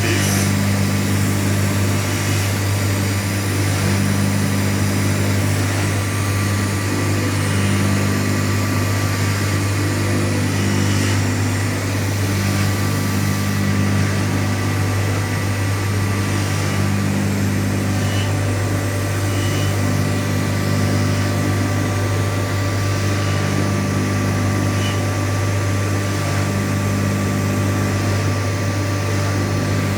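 Steady hum of a workshop machine: a strong low drone with a few thin steady tones above it, and a lower band that swells and fades every few seconds.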